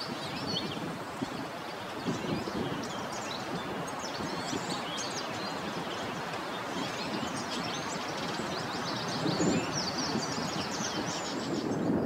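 Small birds singing in quick, high chirps over a steady rush of wind moving through vegetation.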